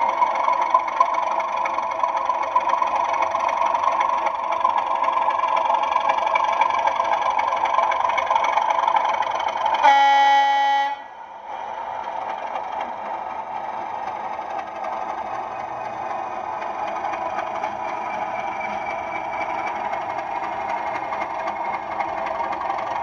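Diesel engine sound of a Bachmann Class 37 model locomotive running steadily, with one horn blast of about a second some ten seconds in. Right after the horn the engine note drops, then builds again as the locomotive moves off with its vans.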